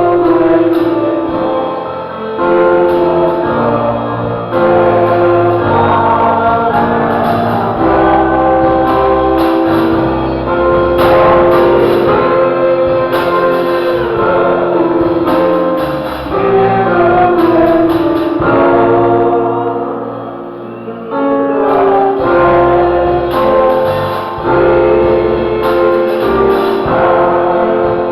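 Gospel choir singing long held chords over instrumental accompaniment with a bass line, dipping briefly about two-thirds of the way through.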